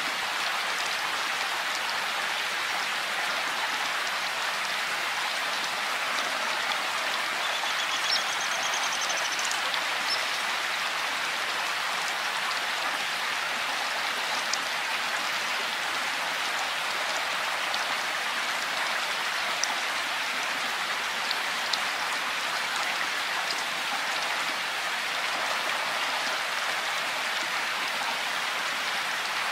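Steady rain: an even hiss with a few single drops ticking a little louder now and then.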